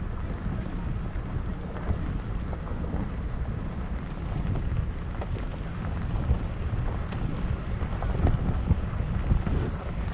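Vehicle driving on a dirt road: a steady low rumble of tyres on the gravel and wind buffeting the microphone, with scattered small ticks.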